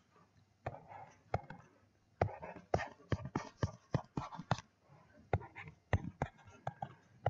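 Pen stylus tapping and scratching on a tablet while handwriting: irregular sharp clicks, several a second, with short scratchy strokes between them.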